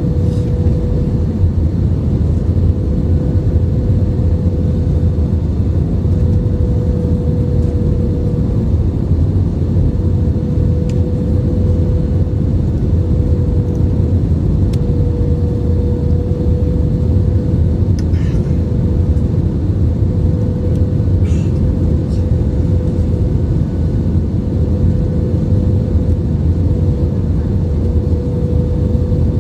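Passenger jet cabin noise in flight: a steady rumble of engines and airflow with a constant hum through it.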